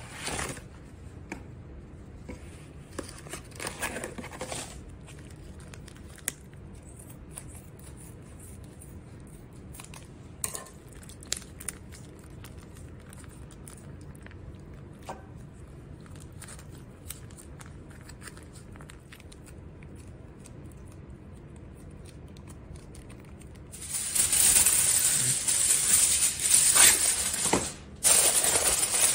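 Quiet rustling and small clicks of plastic food packaging being handled. About four-fifths of the way in come loud crinkling sheets of aluminium foil being pulled and pressed down over a dish by hand, with a brief pause near the end.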